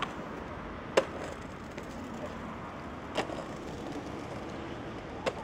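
Three sharp knocks about two seconds apart over a steady outdoor background noise.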